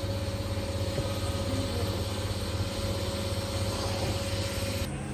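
Steady mechanical hum with a constant tone and a haze of noise, which cuts off abruptly near the end.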